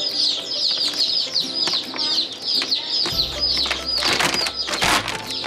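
A box of baby chicks peeping constantly: many high, falling cheeps overlapping. About four seconds in, paper rustles and crackles as a paper feed bag is pulled open.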